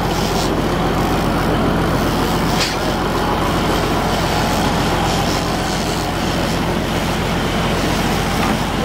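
Fishing boat's engine running steadily at trolling speed, a low hum under the rush of water from the wake.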